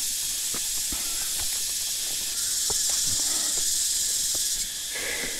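Cicada chorus making a loud, high, steady hiss that swells about halfway through and drops back near the end. Footsteps at a walking pace are heard faintly beneath it.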